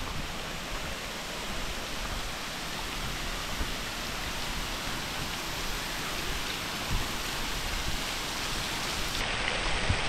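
Steady rush of falling water, an even hiss with no distinct events, which changes abruptly about nine seconds in.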